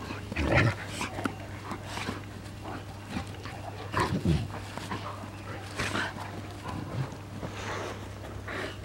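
A Tornjak and a Bucovina shepherd dog play-fighting at close range: short, irregular dog vocal noises and mouthing sounds in bursts about every second, the loudest around the start and about four and six seconds in.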